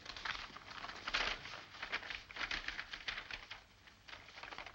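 Paper rustling and crackling in irregular bursts as the deeds are unfolded and handled, the loudest rustle about a second in.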